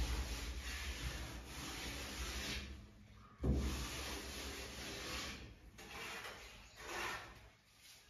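Plasterer's hand float rubbing over fresh cement plaster on a wall, a rasping scrape in long strokes. There are two long strokes, the second starting with a dull thump, then two shorter strokes near the end.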